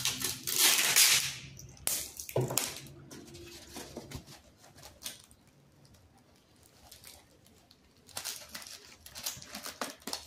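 Hands working packing materials: loud rustling and scratching at a roll of packing tape and a plastic-wrapped cardboard box in two bursts near the start, a quieter spell, then light crinkling and clicking as a foam sheet is pressed against the box.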